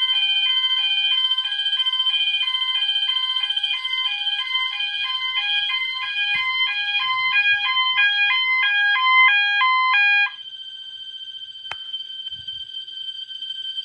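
Two fire alarm sounders going at once: a MASS multitone sounder on its high-low tone, loudly alternating between two pitches, over a Wheelock MT multitone appliance on its bell setting, a steady high ringing tone. The high-low tone cuts off suddenly about ten seconds in, leaving the Wheelock MT's bell tone sounding alone.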